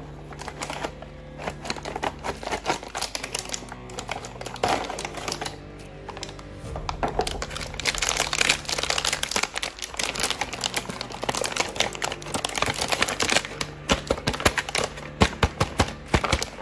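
Plastic toy packaging being handled and opened: rapid clicks and crinkles, thickest in the second half, over steady background music.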